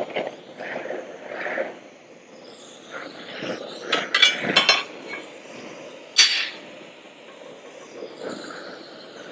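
Intermittent workshop handling sounds: clinks, knocks and scrapes of metal tools and axle parts, with a cluster of sharper clatters about four to five seconds in and another sharp knock about six seconds in.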